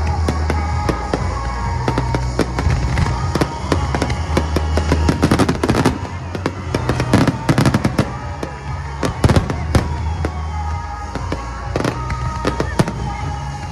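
Aerial fireworks bursting and crackling, many in quick succession, over music playing in the background.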